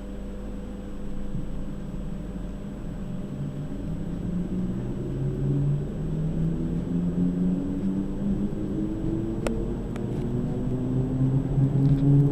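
Z6400 electric train's traction motors whining as the train pulls away, several tones climbing in pitch in steps and growing louder as it accelerates. A few sharp clicks come about three quarters of the way in.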